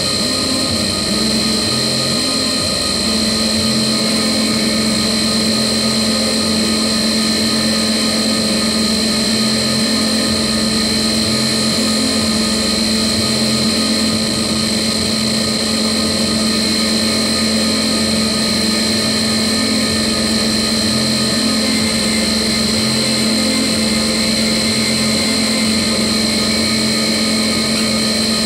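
Harsh electronic noise music: a loud, dense wall of hiss with a steady high whine and a held lower hum, over a low throbbing pulse that repeats about once a second.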